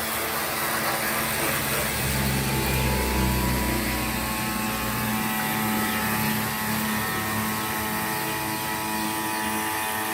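Battery-powered Kurensa mini diaphragm water pump (12–24 V, rated 340 psi) running under load with a steady motor hum and buzz, slightly heavier in the low end for a couple of seconds.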